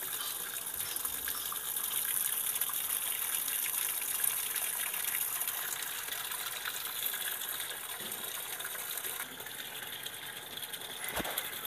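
Water from the inlet of a Sanyo top-load washing machine pouring steadily into the drum as the machine fills on its lowest water-level setting, a little quieter after about nine seconds.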